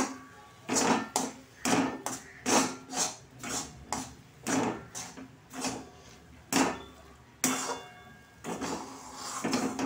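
Steel spatula scraping and knocking against a metal kadai while stirring a stiff, thickening lentil (dhoka) dough, in repeated strokes roughly every half-second to second.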